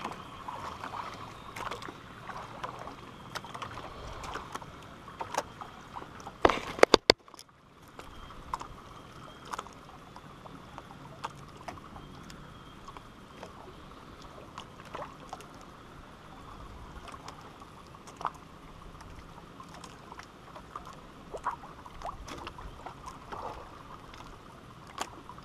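Water lapping against a small outrigger fishing boat, with scattered light clicks and knocks from the boat and tackle. About six and a half seconds in there is a brief louder clatter, then a moment of near silence.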